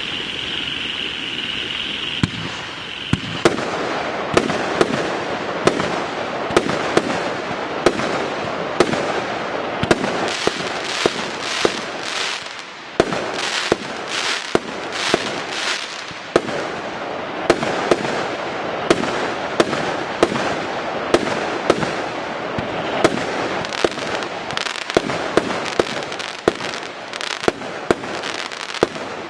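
Piromax Aquila fireworks battery firing shot after shot, about two sharp bangs a second, with crackling stars going off between the shots. The first three seconds hold a steady high hiss before the first shot.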